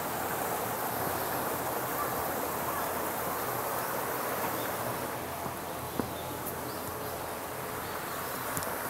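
Steady murmur of a river flowing, with insects chirring faintly over it. A single sharp click sounds about six seconds in.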